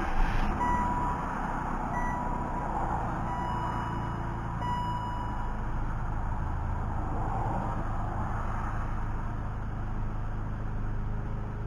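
BMW M54B30 3.0-litre straight-six starting up right at the beginning and settling into a steady idle on fresh oil after an oil change. A high single-pitch beep from the car repeats about every second and a half over the first five seconds.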